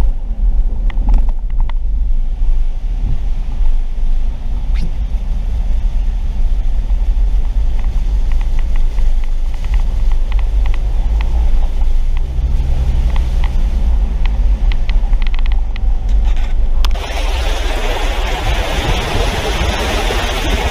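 Car driving through a flooded street, heard as a steady low rumble from inside the car with scattered light ticks. About 17 seconds in it switches abruptly to a loud rushing hiss of water sprayed up by the tyre ploughing through floodwater.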